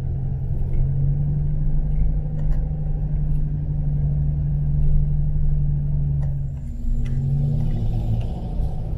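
Car engine and road rumble heard from inside a moving car, a steady low hum that shifts in pitch about seven seconds in.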